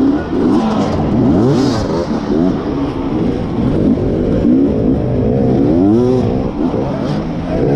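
Beta enduro motorcycle engine revving hard and dropping off again and again as the rider works the throttle through the turns, its pitch rising and falling every half second or so.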